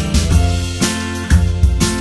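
Background music with a steady beat, guitar and drums.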